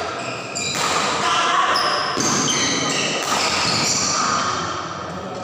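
Badminton doubles rally: several sharp racket strikes on the shuttlecock and the players' quick footwork on the court, with voices of onlookers.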